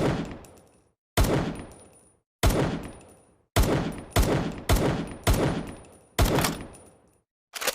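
Makeshift M1911 pistol gunshot sound effect: a series of sharp shots, each fading out over about a second. The first few come a little over a second apart, then they quicken to about two a second, and a faint high ring follows some of them.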